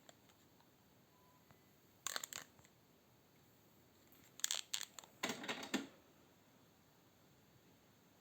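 Three short bursts of clicking and rattling, about two seconds in, again near four and a half seconds, and just after five seconds, with faint hiss between.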